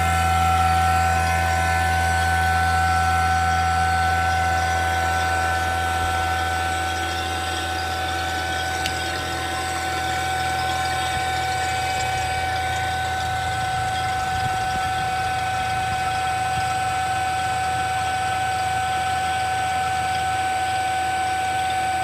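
Fieldpiece VP85 8 CFM vacuum pump running steadily with its gas ballast open, pulling down an HVAC refrigerant system; a low hum with a steady whine above it, slightly quieter after about six seconds.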